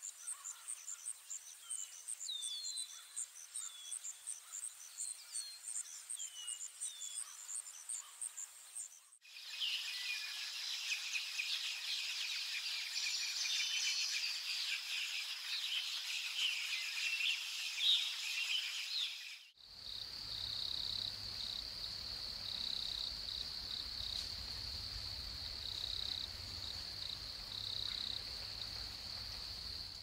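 Tropical forest ambience of insects and birds that changes abruptly twice. First a fast, even insect pulse with short falling bird chirps; then a dense chorus of insects and birds; then a steady high insect drone over a faint low hum.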